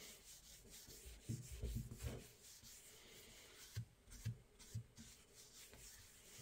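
Faint wiping of a paper towel over a freshly cold-blued steel axe head, rubbing on gun oil, with a few soft low bumps as the hand presses and shifts.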